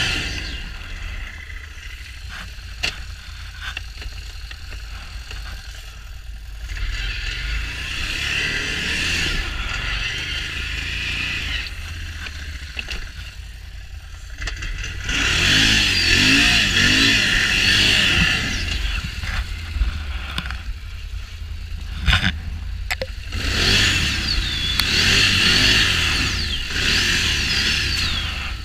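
Can-Am Renegade XMR 1000 ATV's V-twin engine revving in three bursts of a few seconds each, dropping back between them, under heavy load in deep mud and snow. There is a sharp knock between the second and third bursts.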